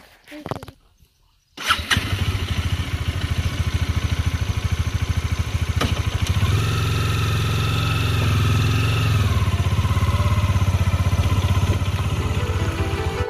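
An engine starts abruptly about a second and a half in and runs with a steady low throb, picking up speed for a few seconds in the middle before settling back.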